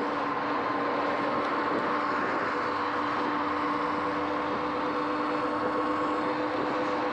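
Sur-Ron X electric dirt bike cruising at a steady speed: a steady whine from its electric motor and drive over a rushing noise of tyres on damp pavement and wind.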